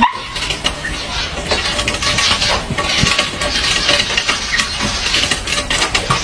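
Puppies scrabbling and jostling: a busy patter of claws clicking and small taps on a plastic ramp and tabletop.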